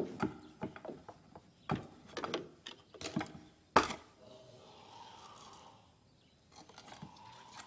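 Scattered soft knocks, clicks and rustles of someone moving against a wall, with one sharp knock just before the middle, then a faint hum and a few more light clicks near the end.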